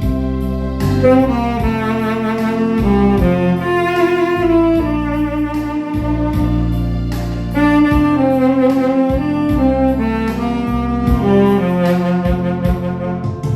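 Saxophone playing a slow Korean ballad melody over a recorded backing track with bass and keyboard.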